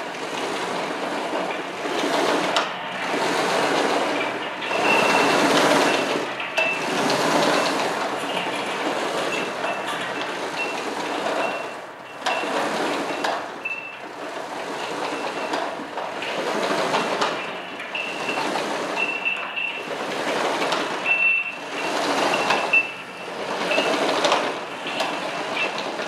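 Earthquake simulator running a magnitude 8 Tokai earthquake scenario as felt on a high-rise 30th floor: a rumbling, rattling noise that swells and fades every second or two with the slow sway, with a faint high squeal that comes and goes.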